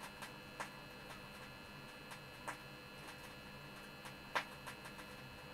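Vinyl LP surface noise in a silent groove: a faint steady hum and hiss with a few scattered clicks and pops, the loudest about four seconds in.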